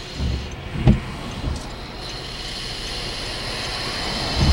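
Car driving on a wet road, heard from inside the cabin: a steady low rumble of tyres with a few low thumps in the first second and a half, then a wet tyre hiss that swells in the second half as another car comes alongside.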